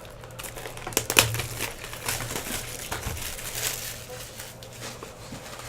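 Crinkling and tearing of the wrapping on a hobby box of baseball cards and its packs as they are opened by hand, irregular rustles and crackles with a louder crackle about a second in.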